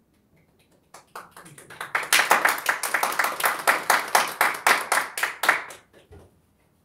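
Hands clapping in applause, a crisp run at about five claps a second. It starts about a second in, swells, and stops around six seconds.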